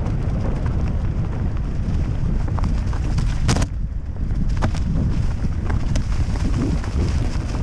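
Mountain bike rolling fast down a leaf-covered dirt trail: wind rumbling on the microphone with tyre noise and the bike's rattle over the rough ground. Scattered sharp clacks, the loudest about three and a half seconds in.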